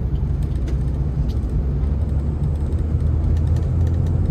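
Car engine and road noise heard from inside the cabin of a slowly moving manual car: a steady low rumble that grows a little stronger a couple of seconds in.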